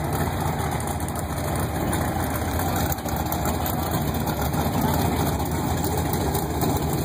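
Drag race car's engine idling steadily at a low, even pitch.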